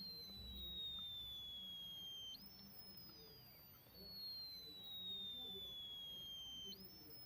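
High-pitched electronic whine from a capacitor-dump circuit, picked up through a ring magnet. It slides steadily down in pitch for about two seconds, then snaps back up, twice: each slide is the capacitor filling and each jump is the capacitor dumping.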